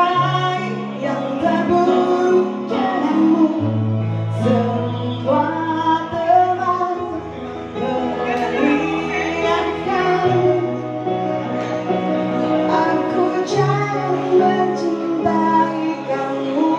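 A woman singing a slow melody into a microphone with a live band of guitar, keyboard and drums, over sustained low bass notes that change every second or two.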